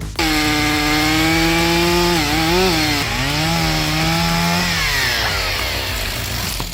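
A high-revving machine cutting wood: a steady high engine note with a harsh rasp over it. The pitch dips twice as it takes load, about two to three seconds in, then falls steadily over the last two seconds.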